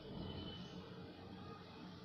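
Faint scratching of a brown colored pencil shading on paper, over a low steady background hiss.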